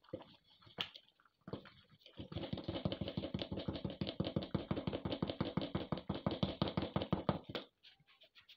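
Wooden spoon stirring a thick white mixture in a stainless steel pot, with fast, even strokes of about eight a second. They start about two seconds in and stop shortly before the end, with a few scattered scrapes and clicks around them.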